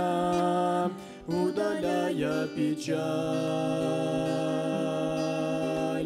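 Mixed youth vocal group singing a slow Russian-language Christian song in harmony to acoustic guitar. A phrase ends on a held note, a short break follows about a second in, then the word 'удаляя' rises into a long held chord over the last three seconds.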